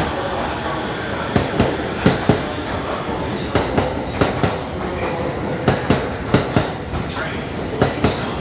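E231-series electric commuter train running over rail joints and points: continuous running noise broken by a rapid, uneven series of wheel clacks, a few to the second.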